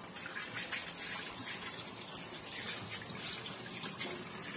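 Starchy liquid pressed from grated potatoes being poured into a cup: a continuous splashing trickle.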